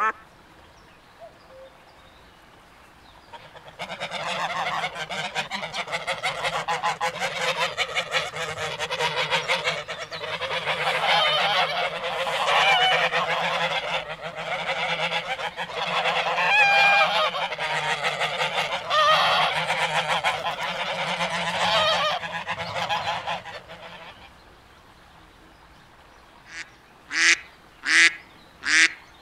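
A flock of waterfowl honking and calling over one another for about twenty seconds. After a short lull, a duck starts quacking in a steady series, about two quacks a second.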